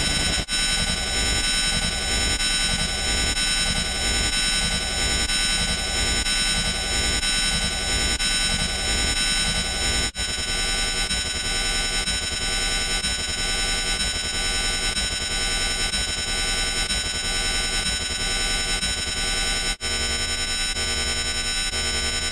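Loud, harsh electronic noise: many sustained tones piled over a hiss, with a pulsing pattern underneath for the first ten seconds. It breaks off for an instant twice, at about ten and twenty seconds, and changes character each time.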